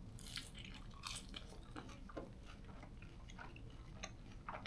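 A person biting and chewing crispy fried onion strips up close: a run of faint, irregular crunches and crackles.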